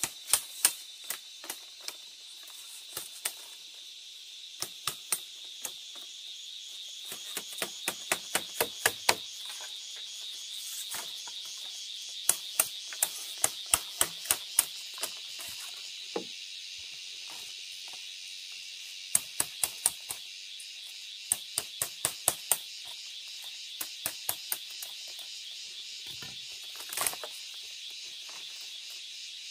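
Steady insect chirring in the forest, overlaid by sharp knocks that come in quick runs of several strikes a second, separated by pauses. One duller, heavier knock comes near the end.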